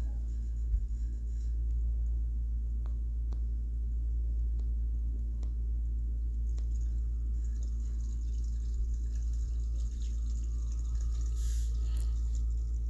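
Steady low background hum, with a few faint clicks scattered through it.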